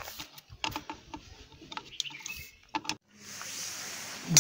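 Irregular sharp metallic clicks and clinks of a T-handle wrench working the bolts of a motorcycle's clutch pressure plate. About three seconds in they stop and a steady hiss takes over.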